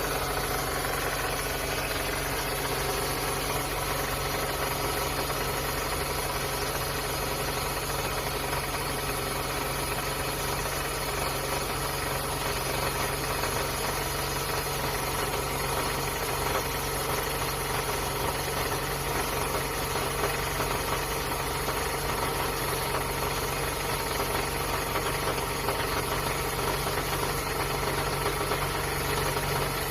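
Toyota Vellfire (20-series) 2.4-litre four-cylinder engine running steadily with an abnormal noise from the right front, coming from the balance shaft drive gear in the oil pan, whose resin teeth have stripped.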